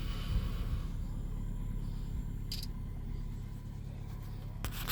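Steady low rumble of a car, heard from inside the cabin, with a few short clicks about two and a half seconds in and near the end.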